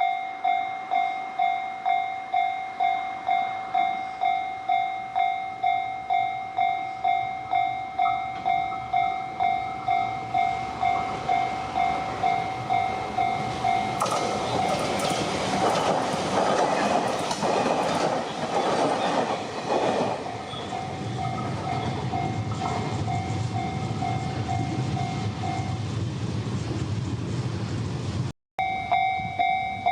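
Japanese level-crossing warning bell ringing about twice a second, while a train rushes over the crossing with wheels clattering, loudest from about halfway through. The bell stops near the end under a low rumble, then after a brief break it rings again.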